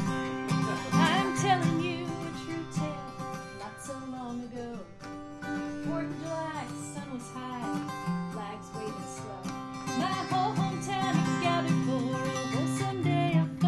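Live folk music: an acoustic guitar strummed in steady chords, with a wavering melody line over it.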